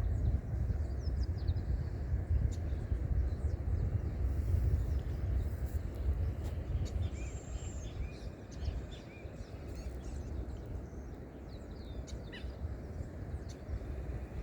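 Outdoor nature ambience: a low, uneven rumble throughout, with scattered faint bird chirps.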